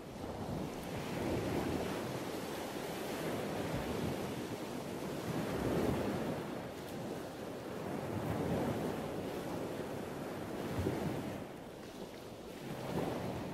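Ocean surf washing onto a sandy beach, a steady rush that swells and eases every two or three seconds, with wind buffeting the microphone.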